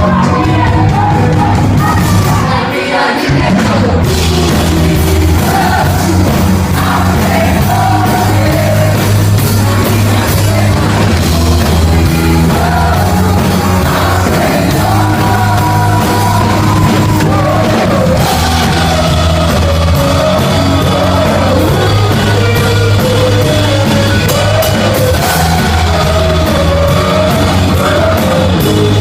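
Rock-style worship song: a lead voice singing over a loud full band with bass and drums. The low end drops out briefly about three seconds in, then the band comes back in.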